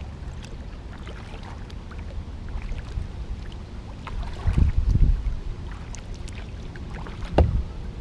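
Kayak paddle strokes through floodwater over a steady low wind rumble on the microphone, with louder splashes about four and a half seconds in and again near the end.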